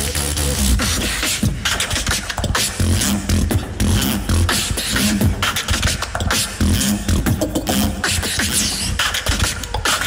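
Two beatboxers performing a tag-team battle routine into handheld microphones over a PA: a steady beat of deep bass pulses and sharp clicks.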